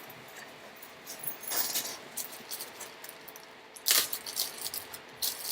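Light metallic clicks and clinks of small objects being handled, with a brief rustle about a second and a half in and a sharper click near four seconds.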